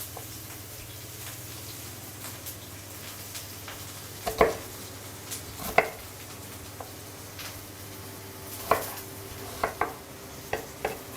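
Knife chopping onion on a cutting board: a handful of sharp, irregularly spaced knocks, over the steady sizzle of diced onion frying in coconut oil in a pan.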